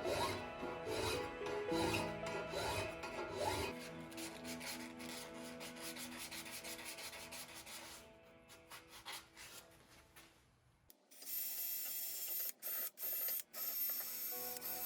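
Quick, repeated hand-scrubbing strokes on a table saw's yoke assembly, a brush or abrasive pad rubbing rust off the metal, under background music; the scrubbing fades and about eleven seconds in gives way to a steady high hiss that cuts out briefly a few times.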